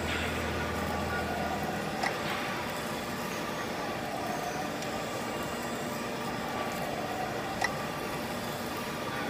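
Hydraulic split-frame pipe cutting and bevelling machine running steadily, its rotating ring carrying tool bits that cut into a steel pipe. A low hum fades out about two seconds in, and a sharp click is heard about two seconds in and again near the end.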